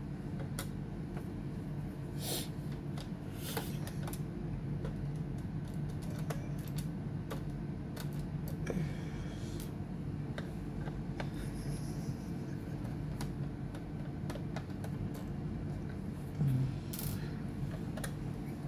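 Small irregular clicks and taps of hand tools working on a laptop's plastic case, with a brief louder knock near the end, over a steady low hum.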